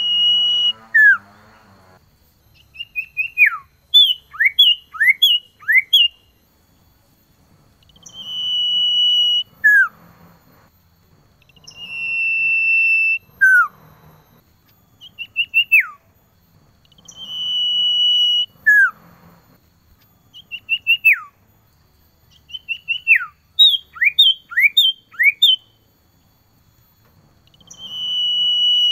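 Male common iora singing: long, level, high whistles that end in a quick downward slur, alternating with runs of three or four short notes that each slide steeply down. The phrases repeat every few seconds.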